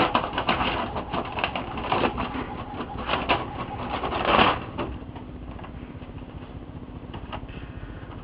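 Printer running, its mechanism whirring and clicking in several bursts, then quieter after about five seconds with scattered clicks.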